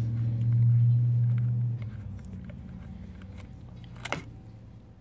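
A steady low hum fades out about two seconds in. Then come light metallic clicks of a socket tool working the terminal bolt on a Shorai lithium motorcycle battery, with one sharp click about four seconds in.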